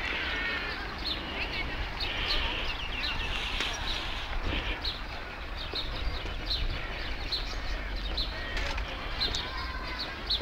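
Small birds chirping in the trees, many short high chirps repeating throughout, over a steady low rumble.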